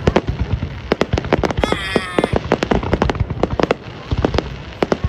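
Fireworks display: rapid, irregular bangs and crackles going off one after another.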